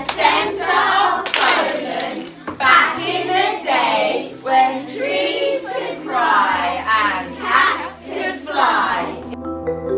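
A class of young children chanting a text aloud together in unison, loud and rhythmic, with a few claps among the words.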